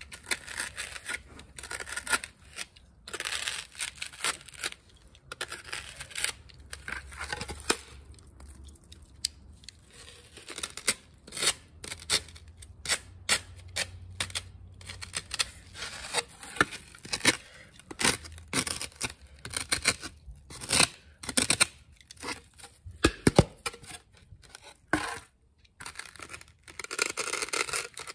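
Craft foam being scraped and shaped by hand: quick, irregular rasping strokes in runs with short pauses between them.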